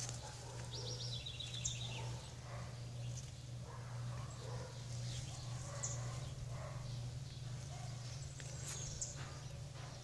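Outdoor garden ambience: a few short, high bird chirps now and then over a steady low hum.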